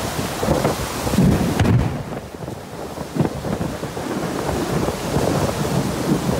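Violent storm wind gusting with heavy rain, the gusts rumbling on the microphone; they ease off briefly about two seconds in, then build again.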